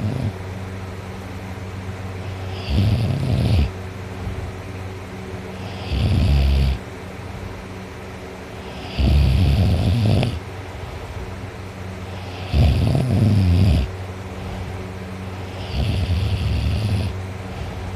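A teenage boy snoring loudly in deep sleep: five snores, one every three seconds or so, each lasting about a second, over a steady low hum.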